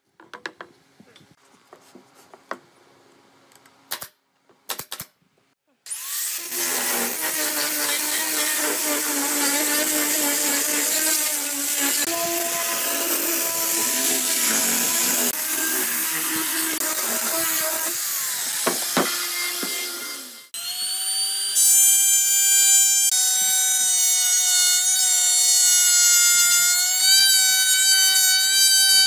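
A few sharp shots from a pneumatic nail gun, then a handheld power sander running against pine boards for about fourteen seconds, then a trim router starting up and cutting along a board with a steady high whine, the loudest part.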